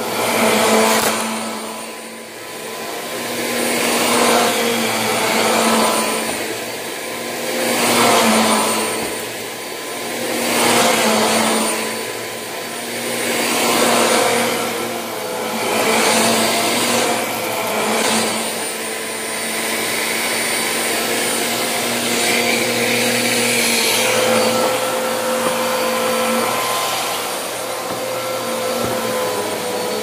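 Hoover Elite Rewind upright vacuum cleaner running on carpet, its motor hum swelling and fading about every two seconds as it is pushed back and forth, then holding steadier in the second half.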